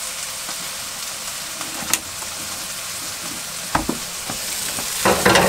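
Eggs and tomatoes sizzling steadily in a frying pan on a gas hob. There is a sharp click about two seconds in, a knock near four seconds, and a run of knocks and rattles near the end.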